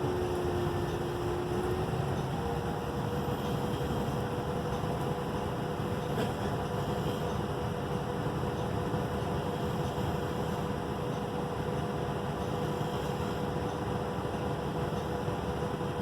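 Steady bus interior noise of engine and road, with a steady whine that steps up in pitch about two seconds in.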